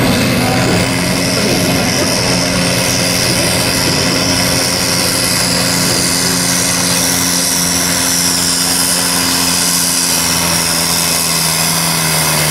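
Diesel farm tractor's engine running flat out under heavy load while it pulls a weight-transfer sled in a tractor pull. The pitch holds steady and sags slightly near the end.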